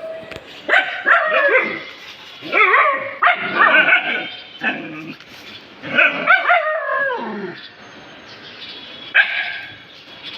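A dog barking and whining in a few separate bouts of pitched calls, several sliding down in pitch, with a last short call near the end.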